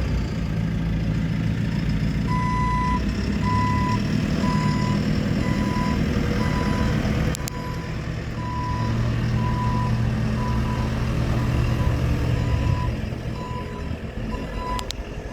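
2015 JCB 3CX loader backhoe's diesel engine running while its reversing alarm beeps in a steady series as the machine backs up. About seven seconds in there is a sharp click and the engine note drops briefly, then comes back up; another click comes near the end.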